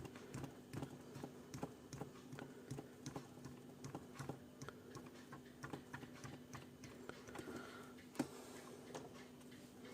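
Pencil eraser rubbed in short, irregular strokes over a laptop RAM module's contacts to clean them, faint scratchy strokes over a low steady hum.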